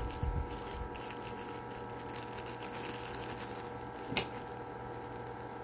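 Faint handling of small unboxed parts over a steady low hum, with one sharp click about four seconds in.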